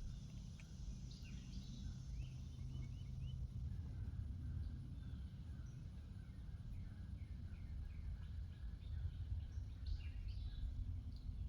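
Small birds chirping in short, quick notes over a low steady rumble, with busier flurries of calls a few seconds in and again near the end.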